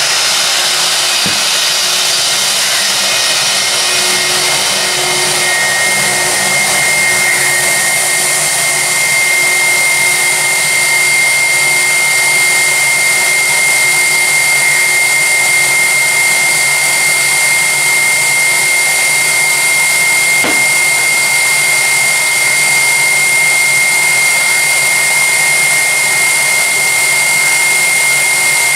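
Airliner engines running at an airport: a loud, steady rush with a high, steady whine that sets in about five seconds in.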